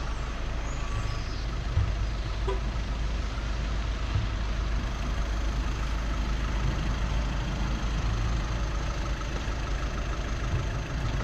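Steady low rumble of a car's engine running close behind, creeping along at low speed.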